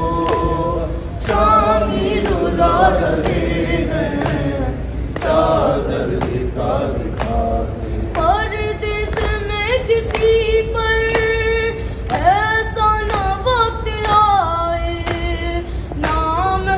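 A noha, a Shia mourning lament, chanted with long gliding lines, with other voices joining in, over a steady beat of hands striking chests in matam.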